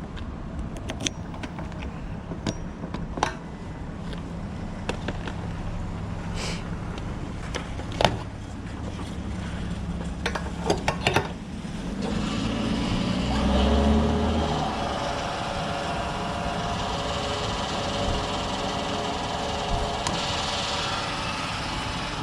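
Yamaha WR 125X motorcycle engine with a BlackWidow exhaust: a low steady running sound broken by scattered sharp clicks and knocks, then from about twelve seconds in a louder, fuller and steadier run that swells briefly near fourteen seconds.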